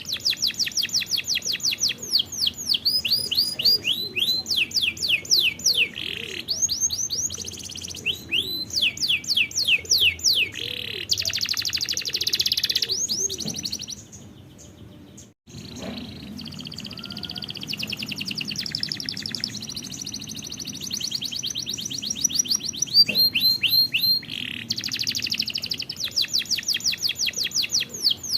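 Canary singing: fast repeated trills of high chirps, with a brief pause about halfway through before the song resumes.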